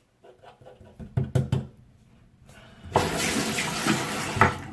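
A few light clicks and knocks, then about three seconds in a faucet with a newly replaced valve is turned on and water runs from the tap into the sink, easing off near the end.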